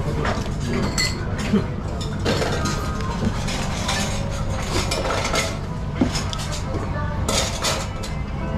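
A soup spoon scraping and clinking against a ceramic bowl, with scattered sharp clinks of crockery and cutlery over a steady low restaurant hum.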